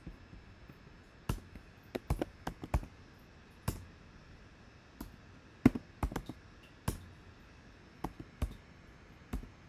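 Typing on a computer keyboard: scattered sharp keystrokes, some in quick runs of three or four and some alone, with pauses of a second or so between.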